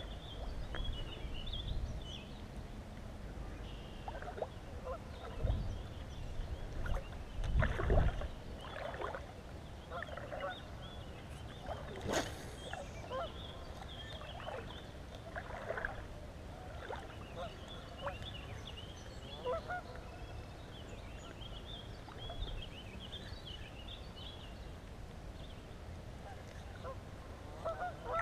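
Birds calling and chirping throughout, with wind buffeting the microphone in low gusts, strongest about eight seconds in. A sharp, brief sound comes about twelve seconds in.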